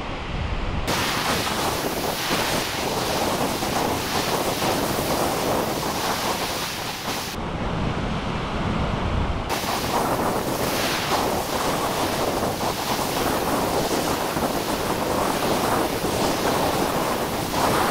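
Surf breaking and washing up a sandy beach, with wind buffeting the microphone. The sound changes abruptly a few times where shots are cut together.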